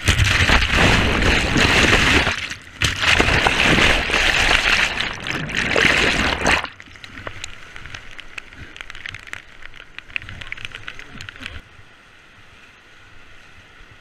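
Whitewater rapids crashing over a raft and onto the camera's microphone: loud rushing and splashing water. About six and a half seconds in it cuts off suddenly to a quieter, steady rush of river rapids with scattered small ticks.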